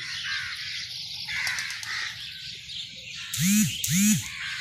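A crow cawing twice, loudly, about three and a half seconds in, over the fainter chatter of other birds.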